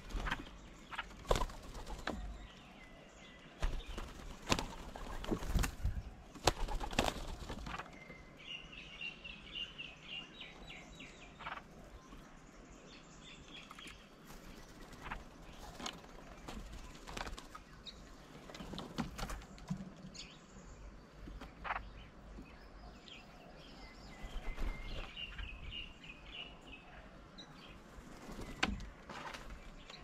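Doves' wings flapping and clattering as they land on and take off from a bird table, with scattered knocks, busiest in the first few seconds. A bird gives a quick run of high chirps twice, about ten seconds in and again near twenty-five seconds.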